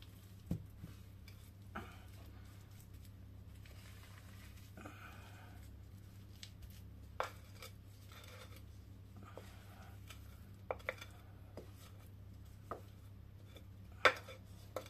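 Wooden spatula scraping thick cake batter out of a ceramic mixing bowl into a ceramic dish: soft scrapes and a few sharp light knocks of wood on ceramic, the loudest near the end.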